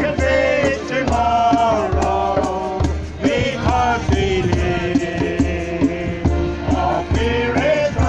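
Church group singing a worship song with musical accompaniment and a steady percussive beat.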